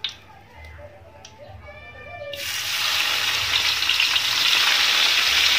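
Sliced shallots dropped into hot oil in a wok, setting off a sudden sizzle about two seconds in that builds to a loud, steady deep-frying hiss. There is a single light knock at the very start.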